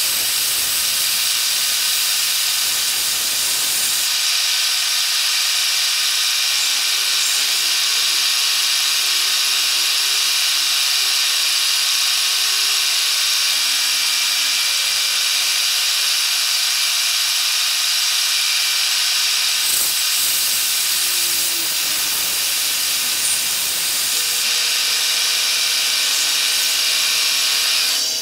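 End mill on a milling machine cutting the outside profile of an aluminum part dry, without coolant: a steady high-pitched hiss with faint steady tones underneath.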